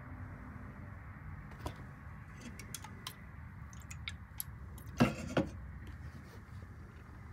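An unopened aluminium soda can set down on a wooden nightstand: a sharp knock about five seconds in and a smaller one just after, following a few faint handling clicks. A low steady room hum runs underneath.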